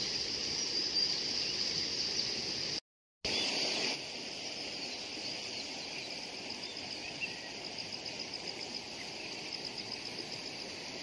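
Water running along a narrow concrete channel, over a steady high chirring of insects. The sound drops out for a moment about three seconds in; after that the water is fainter.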